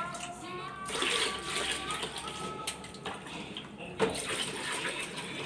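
Soapy water splashing and pouring in a basin as a plastic dipper is worked through it and scooped up, in two bouts: one about a second in and a sharper splash at about four seconds.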